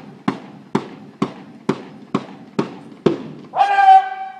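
A drum beating steady marching time, about two beats a second, then near the end a loud, long drawn-out shouted drill command.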